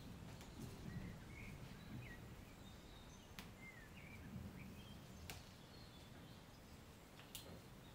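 Near silence: faint room tone with brief distant bird chirps now and then, and a few small clicks and soft rustles of leaves being picked off a Japanese maple bonsai.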